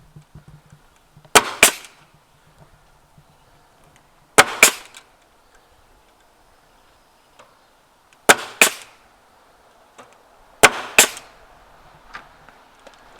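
A crown stapler driving 1-inch staples through hardware cloth into a wooden frame: four pairs of sharp cracks, the two shots in each pair close together, with a few seconds between pairs.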